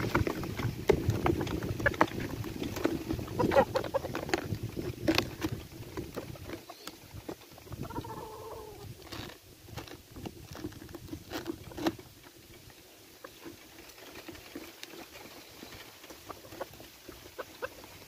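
Handling sounds as a gamecock is put into a corrugated plastic derby box: feathers rustling and the plastic box knocking and rattling, busiest over the first six seconds, then scattered sharp clicks as the lid flaps are closed and the straps fastened.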